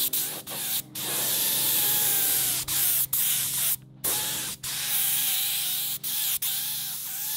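Gravity-feed spray gun atomising primer with a loud steady hiss of air, cut off about eight times for a moment as the trigger is let off between passes.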